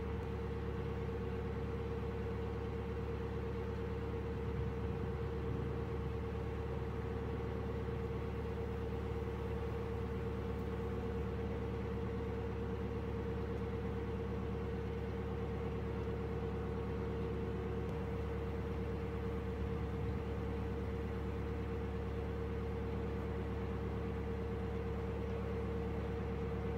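Narrowboat's engine running steadily as the boat moves along under way: a constant low drone with a steady mid-pitched hum over it, unchanging throughout.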